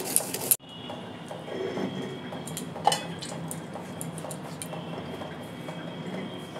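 Stone roller grinding mustard seeds and green chillies on a flat sil grinding stone: a loud dry rasping scrape that cuts off about half a second in, then a softer wet grinding of the paste with one sharp stone-on-stone knock about three seconds in.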